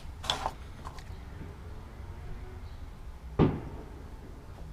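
Tools being handled on a workbench: a short clatter near the start, then a single sharp knock of something set down on a hard surface about three and a half seconds in, over a low steady hum.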